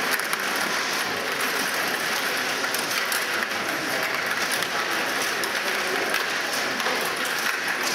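Steady clatter of Stiga table hockey in play: the rods rattling and clicking as they are pushed and twisted and the puck knocking about, many small clicks over a continuous din from the other tables in the hall.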